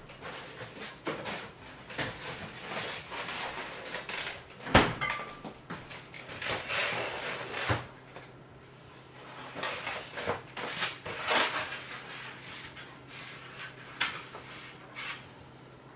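Kitchen handling clatter: a run of knocks, bumps and rustles of doors and things being moved about. The sharpest knock comes about five seconds in, and a faint steady low hum runs underneath.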